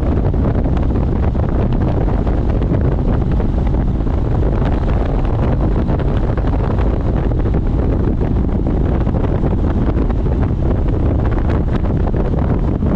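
Steady wind noise buffeting the microphone of a touring motorcycle cruising at highway speed, with the bike's running and road noise underneath. The noise is heaviest in the low end and holds even throughout.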